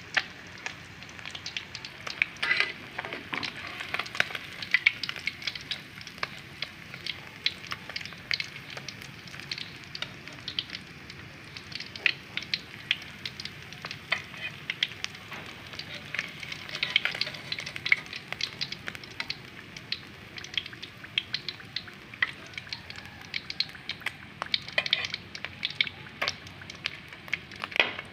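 Yellowtail scad deep-frying in hot oil in a wok, now cooked through: a steady sizzle with frequent sharp crackles and pops of spattering oil.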